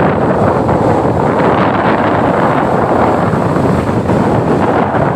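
Strong wind buffeting the microphone, a loud, steady rumble with the surf of high waves mixed in.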